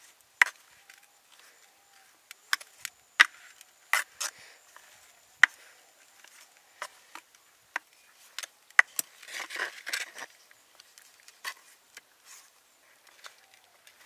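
A wooden spoon knocking and scraping against a clay pot as cooked rice is stirred: irregular sharp wooden knocks, with a denser rustling scrape about nine to ten seconds in.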